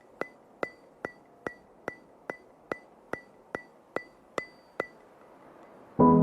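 Steady ticking, about two and a half sharp ticks a second, each with a short bright ring. The ticks stop just under five seconds in, and soft piano music begins near the end.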